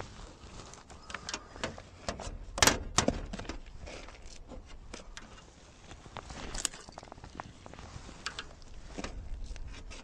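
Irregular clicks and rustles of a bait catapult being loaded with maggots from a bait box, with a sharper clatter about two and a half seconds in.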